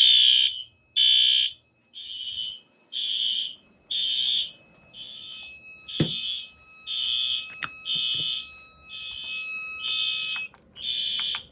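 Fire alarm sounding in shrill high-pitched pulses, about one a second, stopping just before the end. There is a sharp click about six seconds in, and a fainter steady tone runs under the pulses for a few seconds after it.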